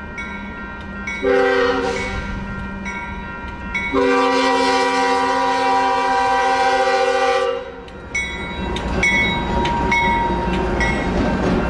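Train horn sounding a chord of several tones: a short blast about a second in, then a long blast of three to four seconds, over the rumble of a passing train. Near the end the horn stops and the rumble goes on with scattered clicks.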